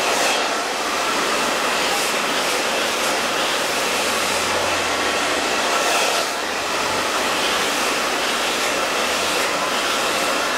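Handheld hair dryer running steadily, blowing hair dry over a round brush during a blow-out. Its sound dips slightly about six seconds in.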